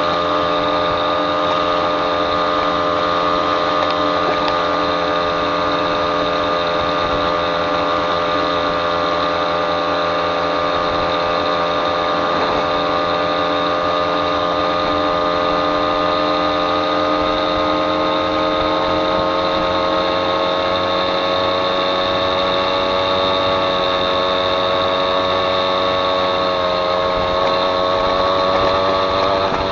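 Small two-stroke moped engine running steadily at cruising speed, its pitch creeping slowly up over the second half.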